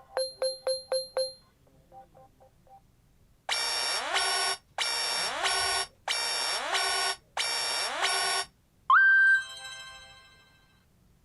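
Nokia C2-02 mobile phone playing its built-in ringtones one after another. First come five quick bright pings, then four pairs of harsh buzzing beeps, then a tone that slides up and fades away.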